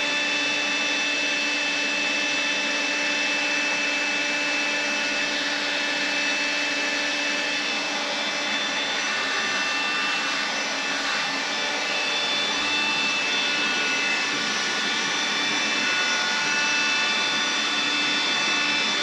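Small handheld cordless vacuum cleaner running steadily, a motor whine whose tones shift slightly in pitch now and then as the nozzle is moved over the resin surface.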